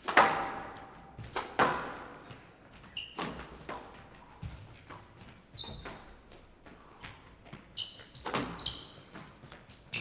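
Squash rally: the ball cracks off rackets and the court walls at irregular intervals, the loudest hit right at the start, with shoes squeaking on the court floor in between.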